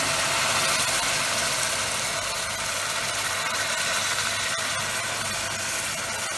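Hot water poured onto rice sautéed in oil and butter in a steel pot, sizzling and bubbling loudly as it hits the hot pan, slowly dying down while the rice is stirred with a wooden spoon.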